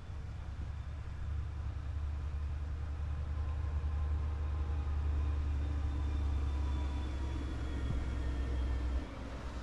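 A motor vehicle's low rumble, building over the first second or so and then steady, with faint engine tones above it; it cuts off suddenly near the end.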